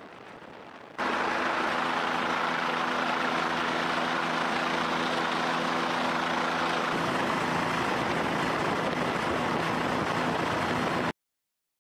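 Steady drone of a helicopter's engine and rotors heard from on board, with a low hum of several steady tones under a rushing noise. It starts abruptly about a second in; the hum drops out about six seconds in while the rushing noise goes on, and it all cuts off suddenly near the end.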